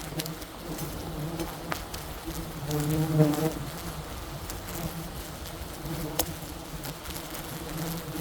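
Wild honey bees buzzing steadily as a swarm, with one bee buzzing louder close by for about a second, three seconds in. A few faint sharp clicks sound among the buzzing.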